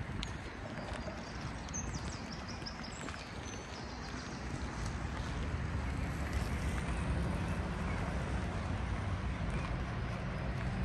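City street ambience heard while walking: footsteps and a low traffic rumble that grows louder about halfway through.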